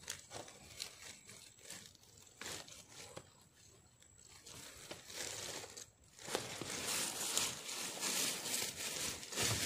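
Dry soil and leaf litter crackling and rustling as sweet potatoes are dug out of the ground by hand, starting about six seconds in; only faint scattered rustles before that.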